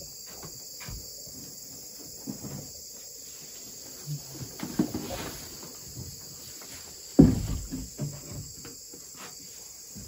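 A steady chorus of crickets and other insects, with scattered knocks and rustling as things are handled at a wooden pulpit, and one heavy thump about seven seconds in.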